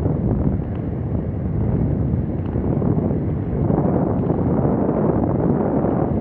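Steady wind rumble on the microphone of an action camera moving at about 11 mph.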